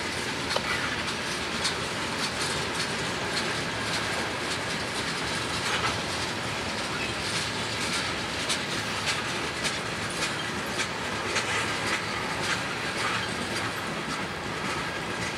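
Freight train of tank cars and covered hoppers rolling past at a steady speed: a continuous rumble of steel wheels on rail with many sharp, irregular clicks as the wheels cross rail joints.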